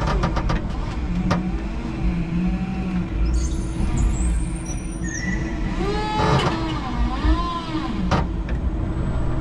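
A 5-ton electric forklift at work: its motors give a steady hum, with rising and falling whines about six to seven seconds in, as the forks slide under a pallet and lift it. A few sharp clicks and clunks come near the start and about eight seconds in.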